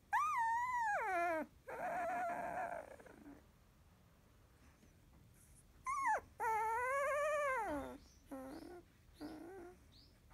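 Sixteen-day-old Labrador puppy whimpering and whining: two long, wavering cries that slide down in pitch, one near the start and one about six seconds in, with a rougher whine after the first and two short whimpers near the end.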